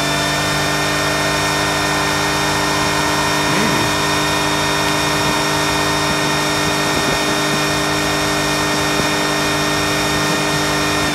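Jeep Liberty engine held at a steady high rev at wide-open throttle during a burnout, its wheels spinning in snow.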